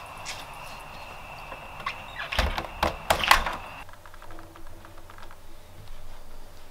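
A door being handled: a few sharp clicks and knocks from the doorknob, latch and door, the loudest between about two and a half and three and a half seconds in. Under them runs a steady high-pitched tone with hiss, which cuts off suddenly near four seconds.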